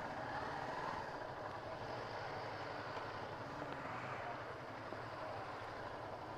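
Motorcycle and scooter engines idling and running slowly as the bikes are eased into parking spaces, a steady, fairly quiet hum.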